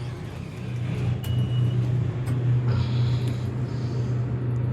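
Otis traction elevator modernized by Thyssenkrupp: a short high beep about a second in, then a steady low machine hum with a few faint clicks.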